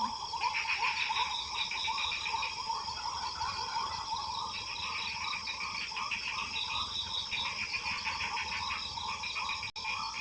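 Wild animal chorus: rapid repeated calls about five a second, with pulsing high trills starting and stopping in stretches over the top.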